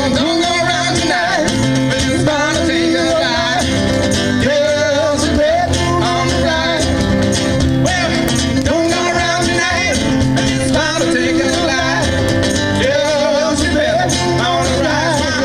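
Live blues band playing: acoustic guitar and bass under a wavering, bending lead melody line.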